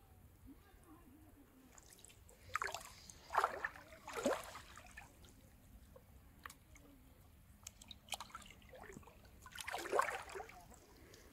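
Shallow river water splashing and sloshing: a cluster of three splashes about two to four seconds in, and another near the end as a bamboo stick is pushed down into the riverbed.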